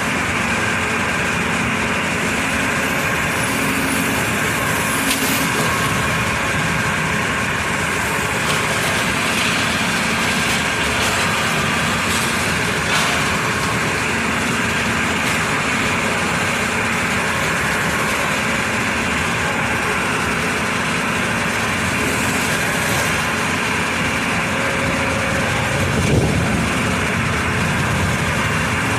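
Hydraulic excavator's diesel engine running steadily under working load while its DAEMO demolition pulverizer crushes brick walls. Brief cracks of breaking masonry stand out a few times, the loudest about 26 seconds in.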